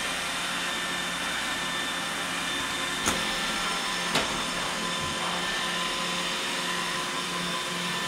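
iRobot Roomba 805 robot vacuum running across a hardwood floor: a steady motor whine and whir from its vacuum and brushes, with two short clicks about three and four seconds in.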